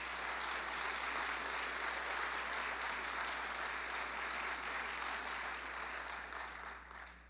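Audience applauding, a steady wash of many hands clapping that dies away near the end.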